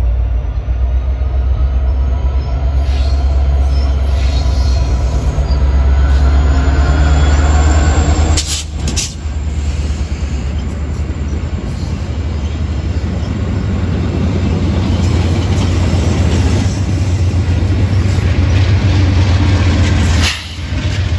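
VIA Rail passenger train passing close by: a heavy, steady low rumble of diesel locomotives with the rolling noise of coach wheels on the rails. The loudness dips briefly twice, once about eight seconds in and once near the end.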